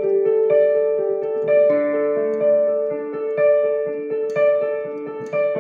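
Digital piano playing slow held chords in a piano voice, worship-style, with new notes struck every half second to a second over sustained lower notes.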